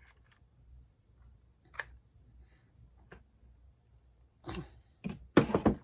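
Spray gun metal parts and a hand tool being handled: a few light clicks, then louder clattering knocks near the end.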